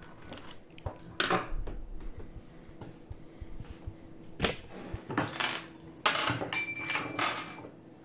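A screwdriver working out small screws from a mechanical keyboard: irregular sharp metallic clicks, clinks and scrapes, with a short metallic ring near the end.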